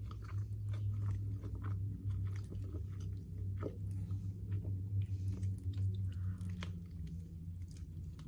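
A person chewing a mouthful of food close to the microphone, with many small irregular wet clicks and crunches, over a steady low hum.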